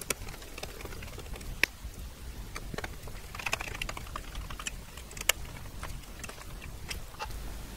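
A hand screwdriver driving small screws into a tape drive's eject bar assembly: scattered light clicks and scrapes of metal on metal, with sharper ticks about a second and a half in and again around five seconds.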